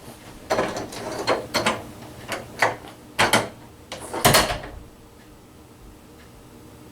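A run of irregular knocks and clunks, about a dozen over four seconds, from someone moving about and handling things. Then only quiet room tone.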